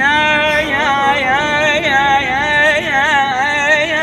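A man singing a long held, wordless note in Iraqi style, the pitch wavering and turning in melismatic ornaments.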